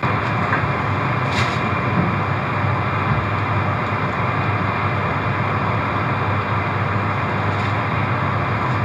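Steady mechanical running noise of a 200 series Shinkansen standing at the platform before departure, starting suddenly, with a few faint ticks.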